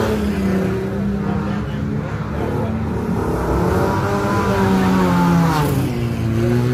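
Engines of banger-racing vans revving hard as they lap a dirt oval. Several engines run at once, their pitch rising and falling, with a pair passing close by partway through.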